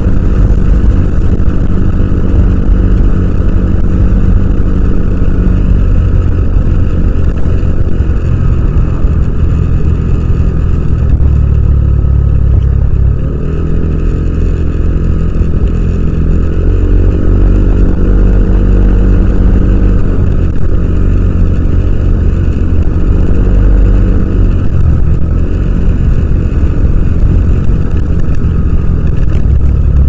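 Yamaha Aerox 155 scooter's single-cylinder four-stroke engine running under way, its note rising and falling as the throttle is worked. There is a brief easing off about thirteen seconds in before it pulls again.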